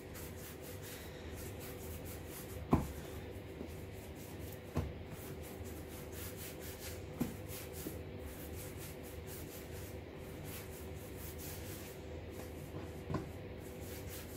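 Hands rolling challah dough strands on a floured wooden bench: a soft, continuous rubbing, with four light knocks as the hands and dough meet the board. A faint steady hum sits underneath.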